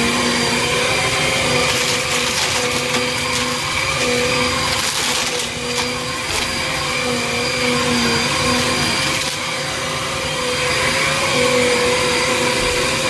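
Small Bissell upright vacuum cleaner running steadily while picking up gritty debris: crackling and rattling as grit is sucked through, heaviest from about two to six seconds in.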